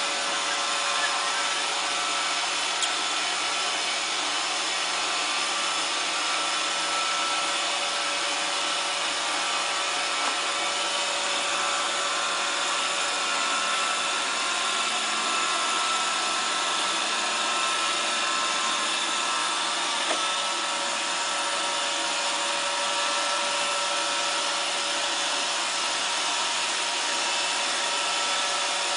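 Roomba robot vacuum running with a steady whir and a few held humming tones. A few light knocks stand out, about a second in, near three seconds, and again about twenty seconds in.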